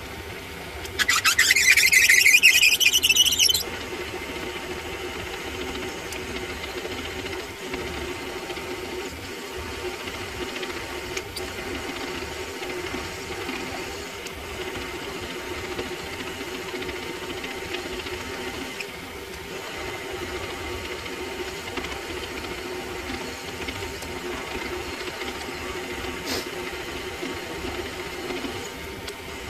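Mini lathe drilling into a spinning workpiece with a twist drill in the tailstock chuck: a loud, high-pitched squeal of the bit in the hole for about two and a half seconds, starting about a second in, then the lathe running steadily with a low hum while the drill cuts.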